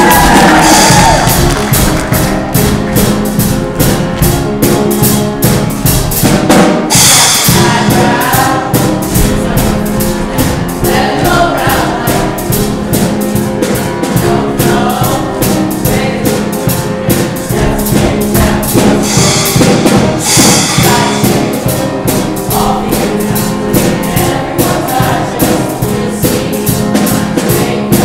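Show choir singing with a backing band or track with a steady drum beat.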